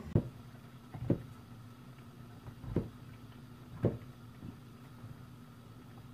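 Kitchen knife coming down on a plastic cutting board: five dull knocks at uneven intervals, over a steady low hum.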